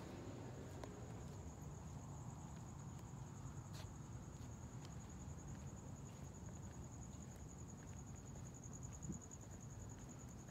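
A cricket trilling steadily in one high, unbroken chirr, over a low rumble and a few faint clicks.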